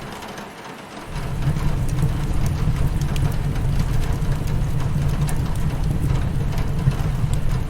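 Rain on a window mixed with a crackling wood fire: a steady low rumbling hiss with scattered sharp pops and crackles. The low rumble drops away at the start and comes back about a second in.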